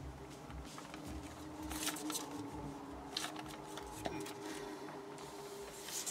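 A 15 cm sheet of origami paper rustling and crinkling in the hands as it is folded and curled into shape, with a few louder crinkles about two, three and six seconds in.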